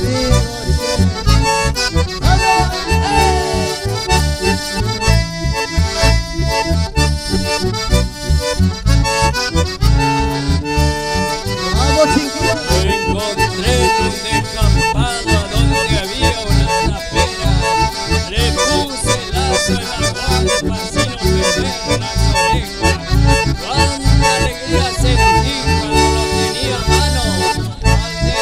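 Live band playing an instrumental passage. Accordion and bandoneon lead over acoustic guitar and bass, with a steady regular beat.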